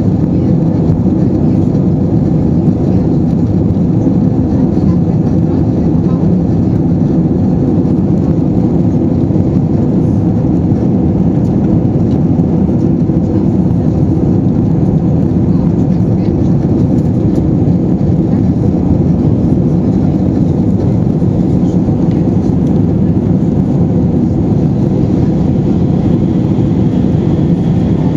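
Airbus A320 jet engines and airflow heard from inside the passenger cabin: a loud, steady, deep rumble that holds even throughout.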